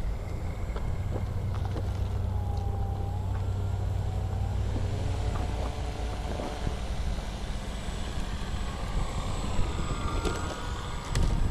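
Wind buffeting the microphone as a steady low rumble, with the faint whine of the Dynam T-28 model plane's electric motor and propeller gliding up and down in pitch twice as it flies past. A few sharp clicks come near the end.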